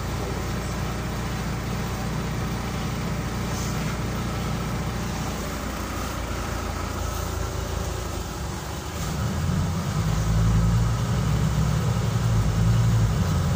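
Scania CN270UB city bus's five-cylinder diesel engine running as the bus drives, heard from inside the cabin as a steady low rumble. About nine seconds in the engine grows louder.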